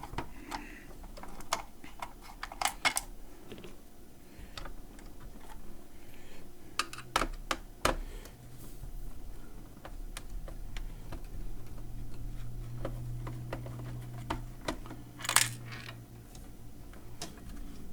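Scattered clicks, knocks and clatter of payphone parts being handled and pulled out during disassembly, with a louder brief scrape near the end. A low steady hum runs through the middle.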